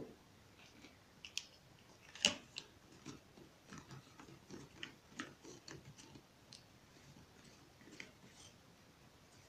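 Faint plastic handling sounds: a small plastic spray bottle being turned in the hands while its sprayer head is fitted back on, giving scattered light clicks and rubbing, with a sharper click about two seconds in.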